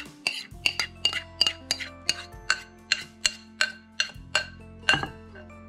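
Background music: quick, evenly spaced plucked notes, about four to five a second, over held low notes.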